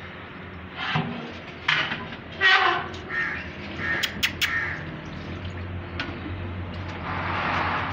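Two small dogs play-fighting, giving three short, loud growling yelps in the first few seconds, with a few sharp clicks around the middle, over a steady low hum.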